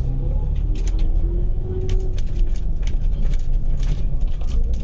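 Inside a moving bus: the engine and road make a steady low rumble, with frequent small rattles and clicks from the bus body and fittings.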